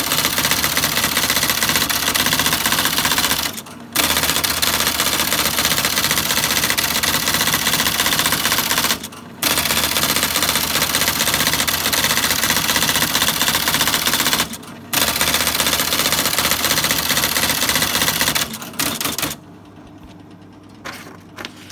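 IBM MC 72 Mag Card Selectric typewriter typing in fast continuous rattling runs of about four to five seconds, each broken by a brief pause. About nineteen seconds in the typing stops, leaving the machine's motor running with a few single clicks.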